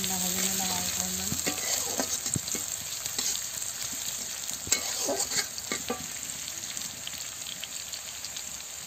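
Sliced onions sizzling in hot oil in a kadai, with a steady hiss, while a spatula stirs them, scraping and knocking against the pan now and then.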